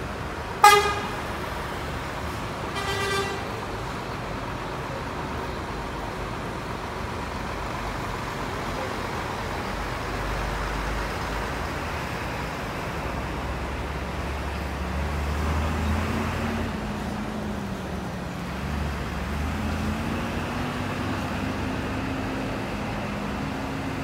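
Two blasts of a bus horn, a loud short one about a second in and a weaker one about three seconds in. Then the Mira coach's diesel engine pulls away, its note swelling and then rising and dipping as the bus accelerates.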